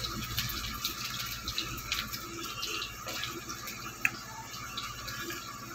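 A steel spoon stirring ground spices and ginger-garlic paste with water in a steel bowl: wet mixing with small scattered clicks and scrapes of the spoon against the bowl.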